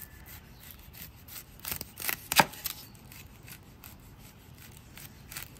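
Kitchen knife cutting through an onion on a bamboo cutting board: scattered short cuts and knocks of the blade on the board, the loudest about two and a half seconds in.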